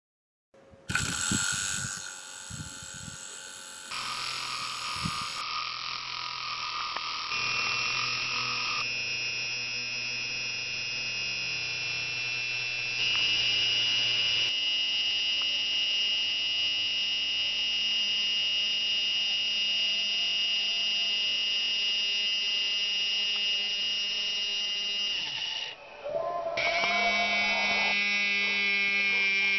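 Home-made brushed DC motor with a copper-wound armature, running on four AA cells (4.8 V), spinning with a steady high-pitched whine and buzz. A few knocks come in the first few seconds. The pitch changes abruptly several times, and the whine is loudest in the second half.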